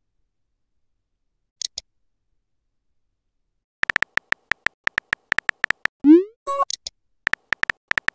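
Texting-app sound effects. A run of rapid, short keyboard key-click sounds starts about four seconds in as a message is typed. A short rising 'bloop' message-sent sound comes about six seconds in, and the typing clicks then resume.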